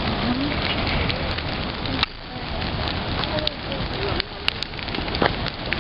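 Large wood bonfire crackling and popping: a steady hiss of burning with frequent sharp snaps. Faint voices in the background.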